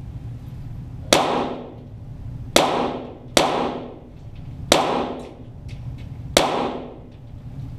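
.22 Walther GSP target pistol shots: five single shots at uneven intervals, each with an echoing tail. A few much fainter sharp ticks fall between the later shots.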